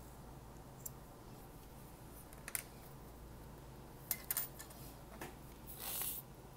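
Scissors snipping a cotton yarn end, heard as a few faint, scattered clicks. Near the end comes a short squirt as a plastic bottle of fabric glue is squeezed.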